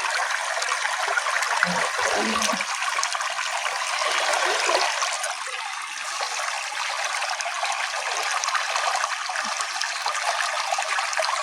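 A small natural stream flowing and babbling steadily. A brief low pitched sound comes about two seconds in.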